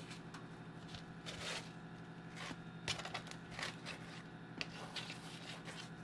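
Microwaved papads being turned over by hand on a paper plate: scattered light scrapes and rustles, a few of them a little louder, over a faint steady low hum.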